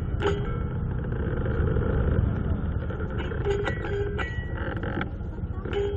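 Motor scooter's small engine running steadily under the rider, with road noise. A few short pitched tones sound shortly after the start and again about three and a half to four seconds in.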